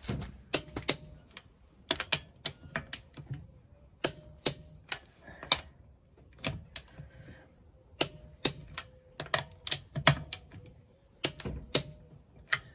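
Sharp, irregular metallic clicks and taps from hand tools on a car's wheel fastenings as the wheels are fitted back on and tightened, often in close pairs, about one or two a second.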